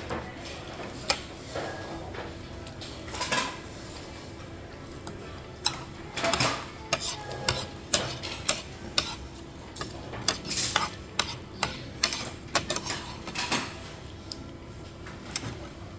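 Cutlery and crockery clinking and tapping as people eat: spoons and utensils knocking against bowls and plates in many irregular sharp clinks, some briefly ringing, over a steady background hum.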